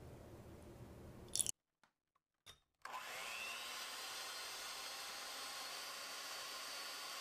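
Heavy cream pours softly into a glass bowl. A sharp click and a short silence follow. About three seconds in, an electric hand mixer starts up with a rising whine and runs steadily, its beaters whipping the cream.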